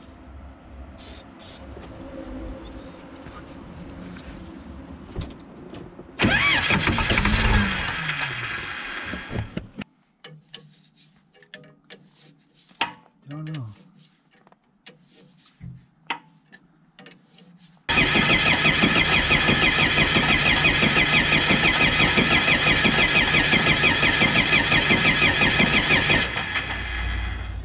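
Case 188 diesel engine cranked over by its starter motor: a loud, steady churning with an even ripple that runs for about eight seconds in the second half and then stops suddenly. Before it comes a short loud burst with rising tones, then scattered short sounds and voices.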